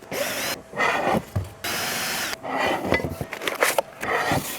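A series of rough scraping and rubbing noises from hands working with material. One steady rasp lasts under a second near the middle.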